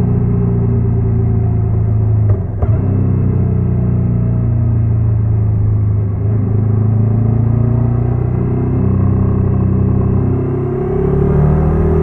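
Honda NC750X parallel-twin engine running with a steady, even note. There is a brief dip with a click about two and a half seconds in, and the pitch shifts slightly a few times.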